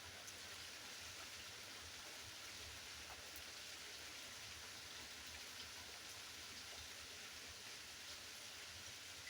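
Steady rain falling: a faint, even hiss with a few scattered drop ticks.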